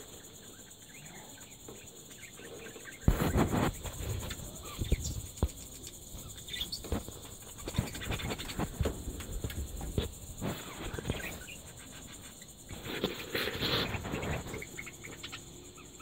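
Budgerigars in an aviary chirping and chattering in short, scattered calls. Louder rustling and bumps come about three seconds in and again near the end.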